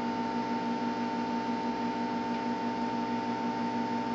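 A steady electrical hum with a high, even whine over it, holding level throughout.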